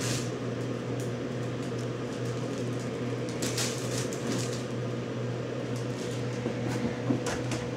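Steady low hum like a fan or air conditioner running, with a few faint, soft rustles and taps.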